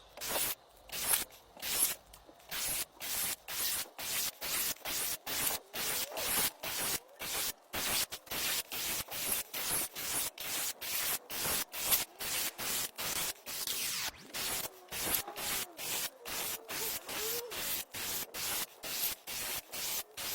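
Cordless screwdriver driving screws into pallet wood with no pilot holes, in a rapid run of short bursts, about two or three a second.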